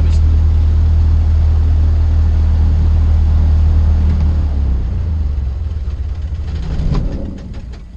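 Cessna 152's four-cylinder Lycoming engine idling steadily, then cut off about four seconds in and running down to a stop over the next few seconds as the aircraft is shut down.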